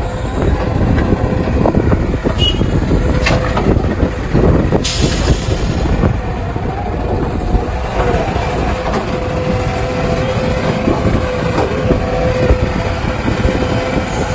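Excavator's diesel engine running under load with a steady whine, punctuated by a few metal clanks and knocks, the loudest about five seconds in.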